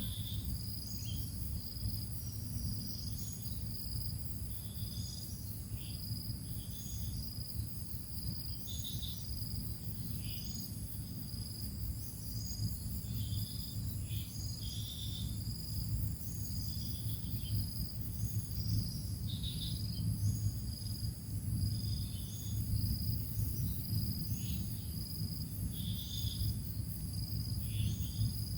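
Short, high peeps scattered irregularly, typical of newly hatched quail chicks, over a steady high-pitched whine and a low hum.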